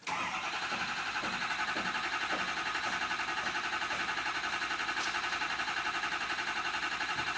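Ford 6.0L Power Stroke V8 diesel being turned over by its starter, a steady rhythmic cranking that never catches. This is a crank-no-start, cranked during a gauge test of the high-pressure oil pump with the injection pressure sensor removed.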